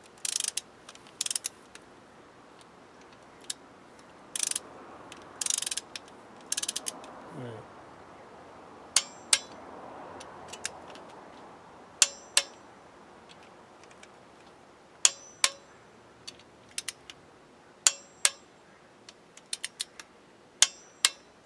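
A torque wrench with a 10 mm socket ratchets the rear crankshaft seal housing bolts snug in short bursts. It then clicks out at 25 newton metres on one bolt after another: a sharp double click about every three seconds, five times.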